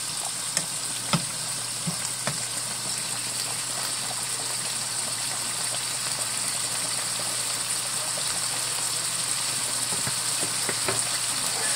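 Ground beef sizzling in a frying pan in its own rendered fat, a steady hiss, with a few clicks of the spatula against the pan in the first couple of seconds.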